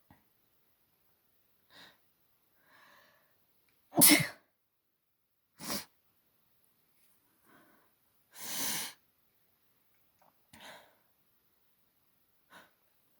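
A woman sneezing repeatedly in an allergy sneezing fit, with short breaths between the sneezes. The loudest sneeze comes about four seconds in, and further, quieter sneezes follow near six and eight and a half seconds.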